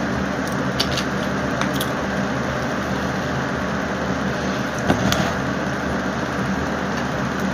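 Steady background hum and hiss, like a running fan or air unit, with a few light clicks and taps as a plastic drink bottle is handled.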